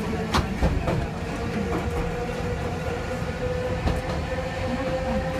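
Keifuku Kitano Line tram running along the track, heard from inside the cab: a steady rumble with a steady whine from about a second in, and the wheels clicking a few times over the rail joints.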